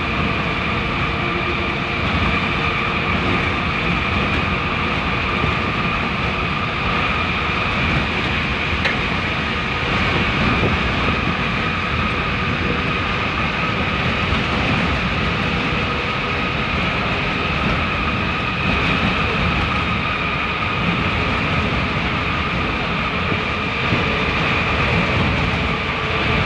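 Inside a bus travelling through a road tunnel: a steady drone of engine and tyre noise with a constant high whine running through it.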